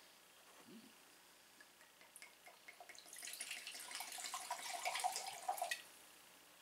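Jamaican rum pouring from a bottle into a glass measuring cup, splashing and trickling for about three seconds, starting about three seconds in.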